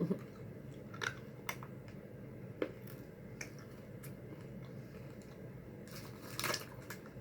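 Quiet chewing of a crunchy-coated Nerds candy with a chewy centre: a few soft mouth clicks and crunches, with a brief louder sound about six seconds in.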